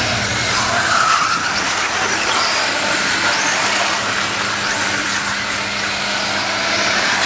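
Several 1/8-scale radio-controlled late model race cars lapping an oval, their small engines whining at high pitch that rises and falls as cars pass through the turns, over a steady hiss of tyres on the track.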